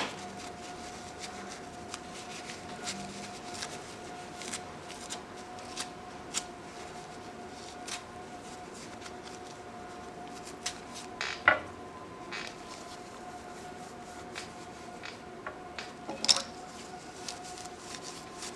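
Faint rubbing and light clicks of small rusted metal can opener parts being wiped clean with a wipe, over a steady faint hum; two brief louder sounds about eleven and sixteen seconds in.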